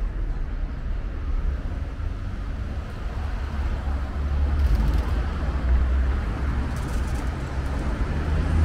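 City street traffic: a steady low rumble of cars passing and idling at an intersection.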